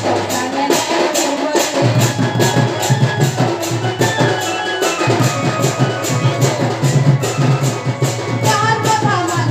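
Live Sambalpuri folk music: a two-headed barrel drum (dhol) beats a fast, steady rhythm with jingling percussion over a held melodic line.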